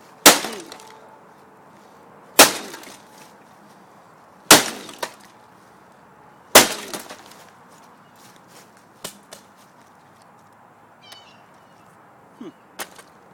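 Four hard blows struck on the parts of a laser printer's drum and gear assembly, about two seconds apart, each with a brief rattling ring. They are followed by a few lighter clicks and knocks.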